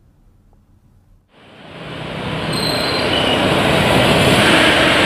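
A loud, steady rushing noise that fades in from near silence about a second in and swells over the next two seconds.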